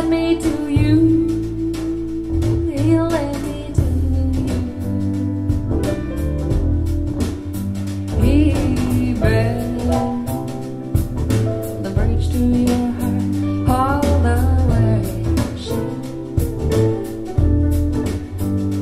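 Music: a woman singing over guitar, bass and a drum beat.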